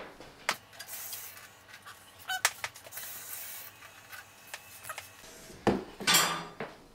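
Metal utensils clinking and knocking against a stainless steel mixing bowl as tablespoons of water go into brownie mix, with short rushes of hiss and a louder one near the end.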